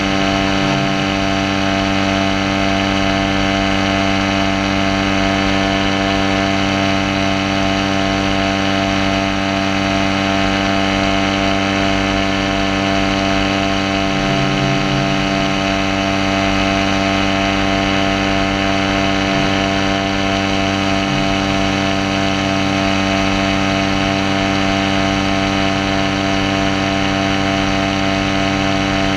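Paramotor engine and propeller running at a steady throttle in flight, one unchanging engine note.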